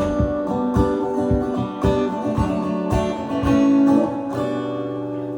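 Acoustic guitar strumming the closing bars of a song, ending on a final chord that rings out and slowly fades about four seconds in.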